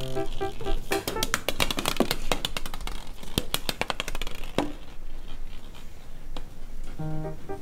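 Small hollow plastic balls clattering and bouncing on a wooden floor: a quick run of sharp clicks and knocks for about four and a half seconds, then it goes quieter. Background music comes in near the end.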